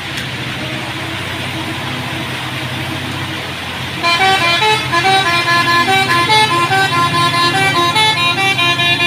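A heavy diesel truck labours up a hill over the hiss of rain and wet tyres. About four seconds in, a multi-tone musical horn starts playing a quick stepping tune of short notes, and it is the loudest sound from then on.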